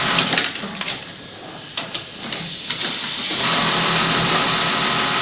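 Industrial auto-elastic sewing machine running at a steady speed, stopping with a few clicks less than a second in, then starting again about three and a half seconds in and running on.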